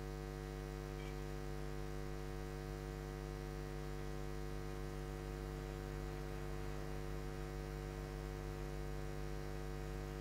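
Steady electrical mains hum on the recording, a low buzz with many evenly spaced overtones that never changes.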